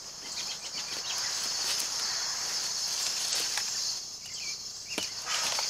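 Steady high-pitched buzz of insects, with scattered rustling and light knocks of old wooden barn tier rails being shifted and pulled off a pile by hand, one sharper knock about five seconds in.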